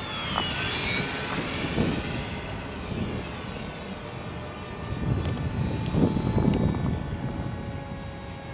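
Radio-controlled Skytrainer model airplane's motor and propeller whining in flight, the pitch falling steeply in the first second as it passes low and climbs away. A low rushing noise swells about five to seven seconds in.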